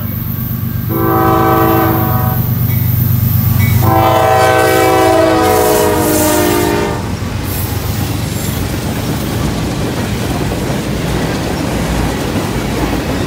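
CSX diesel freight locomotive passing close by, its engine running in a low drone as it blows two horn blasts, a short one about a second in and a longer one from about four seconds. After the horn stops, the tank cars roll past with a steady clatter of wheels on rail.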